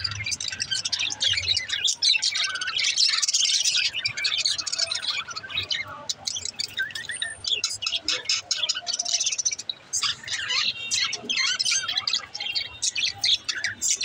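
A flock of budgerigars chattering and warbling: a dense, continuous stream of quick chirps and squawks from many birds at once.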